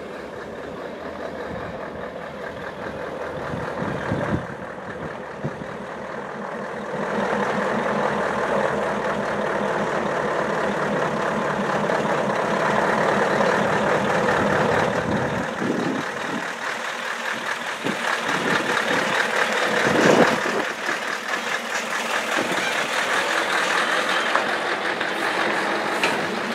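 Scania 144L 460's V8 diesel running as the loaded truck and container trailer creep past over a rough bog track, growing louder about seven seconds in as it nears. A brief sharp noise about twenty seconds in.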